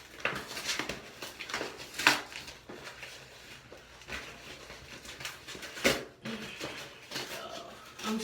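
A mail package being opened by hand without scissors: the packaging crackling and tearing in a run of sharp clicks and rustles, loudest about two seconds in and again just before six seconds.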